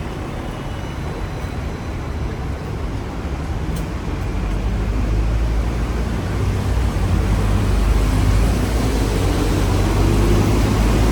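Hong Kong double-decker tram running along its track, a steady low rumble that grows louder, with a whine rising in pitch over the last few seconds.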